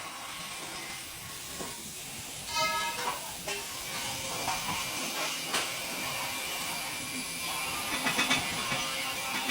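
Steady hiss of a TIG welding arc, with a short pitched tone about two and a half seconds in and a few faint clicks.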